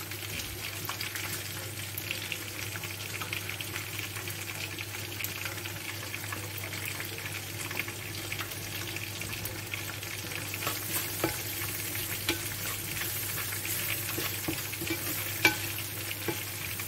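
Onions and tomato sauce sizzling steadily in a clay tajine, with fine crackling. In the second half a wooden spoon stirs through them against the clay, with one sharp click near the end.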